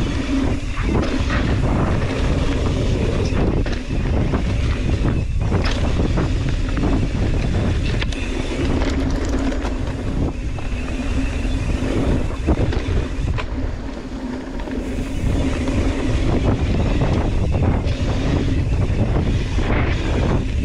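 Mountain bike, a Yeti SB130, descending a rough rocky trail: wind buffeting the microphone over the steady rush of tyres on dirt and rock, with frequent sharp knocks and rattles from the bike over rocks and roots.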